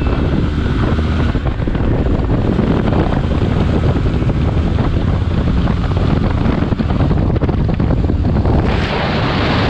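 Wind rushing over the microphone on a motorcycle at about 65 km/h, with the Benelli TRK 502X's 500cc parallel-twin engine running steadily underneath. A louder gust of wind comes near the end.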